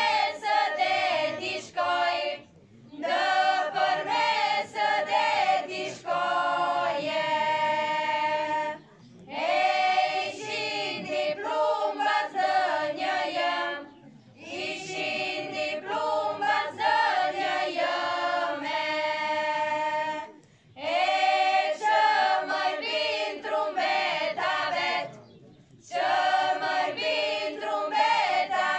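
A small choir of young women singing an Arbëreshë folk song together, in phrases of four to six seconds separated by short pauses for breath.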